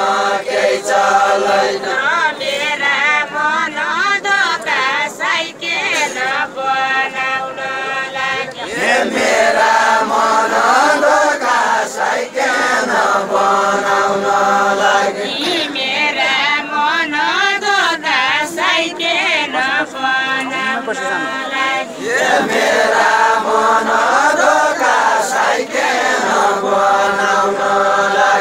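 Deuda folk song sung in chorus by a dancing line of voices, without instruments: repeating phrases with long, wavering held notes.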